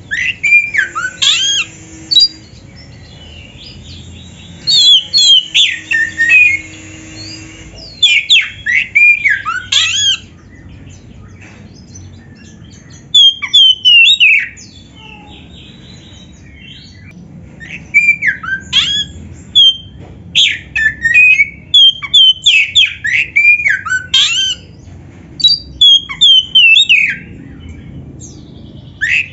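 Oriental magpie-robin (kacer) in full, vigorous fighting-mode song: quick phrases of loud, sweeping whistled notes. The phrases come in spells of a few seconds, with short pauses between them.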